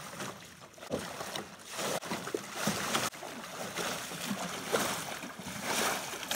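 Wooden paddle splashing and churning the water in a rapid run of strokes beside a small metal boat, getting a little louder toward the end.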